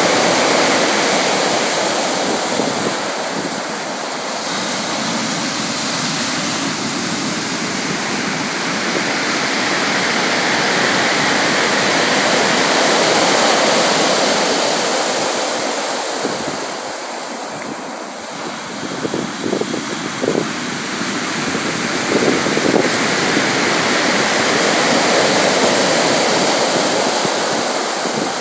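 Sea surf: waves breaking and washing in a continuous rush that swells and ebbs slowly, with brief crackling spatters of water about two-thirds of the way through.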